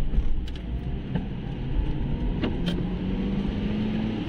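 A car driving on a wet road, heard from inside the cabin: a steady low rumble of engine and tyres, with a few sharp clicks. About halfway through, a steady hum comes in and rises slightly in pitch, as the car picks up speed.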